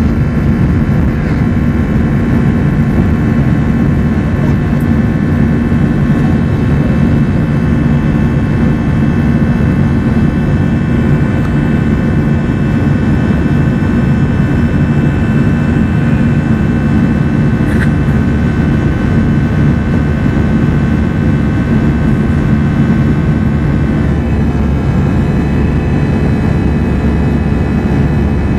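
Airbus A321-211's CFM56-5B jet engines heard from inside the cabin over the wing: steady, loud engine and airflow noise with a low rumble and thin whining tones above it. The whining tones shift slightly in pitch about 24 seconds in.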